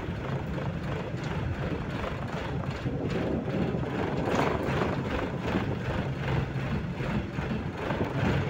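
RVZ-6M2 tram running at low speed along the rails, a steady rumble of motors and wheels with a few sharp clicks, heard from inside the car.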